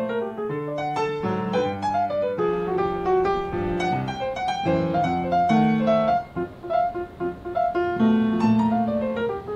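Background piano music: a light keyboard melody over chords.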